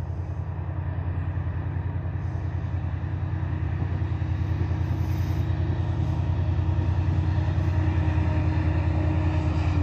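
Passenger train running past along the main line, growing steadily louder over a low, rapidly pulsing rumble, with a steady tone that drops in pitch near the end as it goes by.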